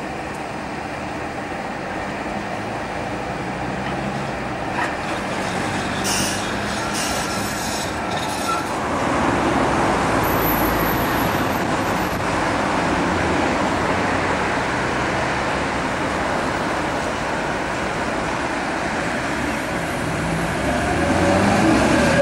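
Vintage streetcars running on street track amid road traffic, a steady rumble that grows louder about nine seconds in. Near the end wheel squeal rises as a tram takes a tight curve.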